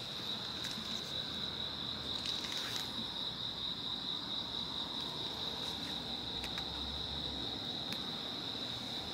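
Crickets chirring in a steady, high-pitched drone, with a few faint clicks.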